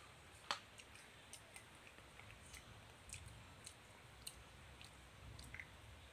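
Faint chewing: scattered small mouth clicks and smacks, with one sharper click about half a second in.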